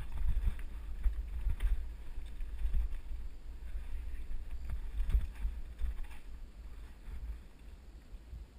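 Wind buffeting a helmet camera's microphone and the rattle and knocks of a mountain bike running fast down a rough dirt trail. It dies down over the last couple of seconds as the bike slows to a stop.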